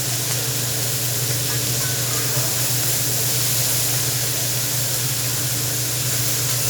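Food sizzling steadily on a hibachi grill, an even hiss, over a constant low hum.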